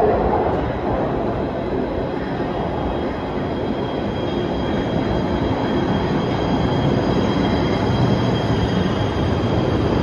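PATH PA5 subway train arriving at an underground platform from the tunnel. Its wheels rumble on the rails, growing a little louder as it pulls in alongside, with thin steady high-pitched tones above the rumble.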